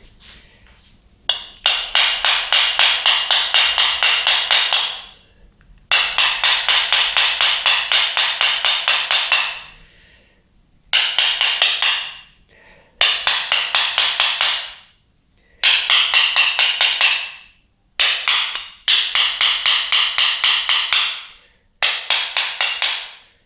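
Rapid hammer taps on the metal parts of an electric water pump, about five a second, in about eight runs of a few seconds each with short pauses between: driving out the pump's shaft seal, which is stuck fast.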